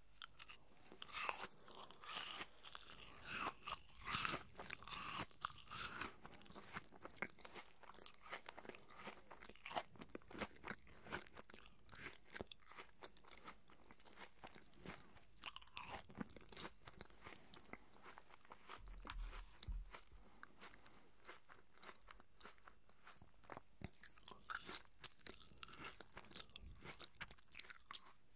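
A person biting and chewing pieces of crisp apple close to the microphone, with crunching. The crunching is densest in the first few seconds and again near the end, with softer closed-mouth chewing in between.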